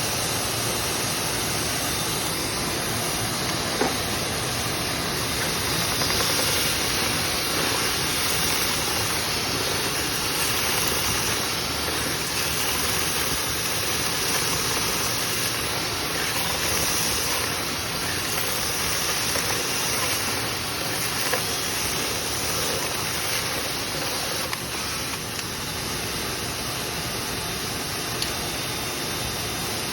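Dryer vent cleaning equipment running steadily, a loud, even rush of air, with a few short sharp clicks over it.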